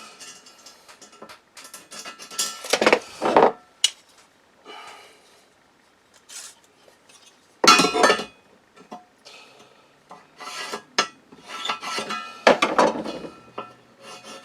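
Steel plates and metal marking tools being handled while the wheel bolt holes are marked out: intermittent metallic clinks and scraping, with a few sharp taps.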